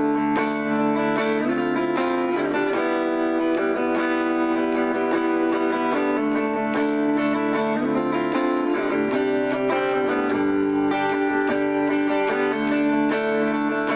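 Electric guitar played on a clean setting with the treble turned down: a slow, improvised easy-listening/light-jazz passage of ringing chords and single notes that change every second or two.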